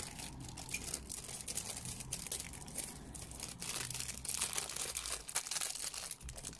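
Clear plastic packaging crinkling and rustling in a continuous run of small crackles as hands work a rolled diamond-painting canvas out of its bag.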